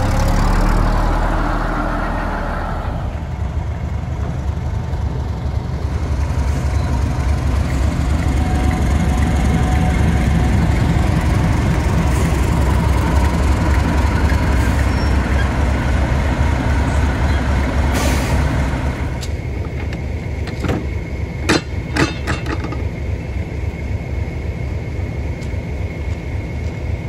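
A double-decker bus engine pulling away close by, then a Class 31 diesel-electric locomotive's engine idling with a steady low rumble. A few sharp metallic clanks come a little after twenty seconds in.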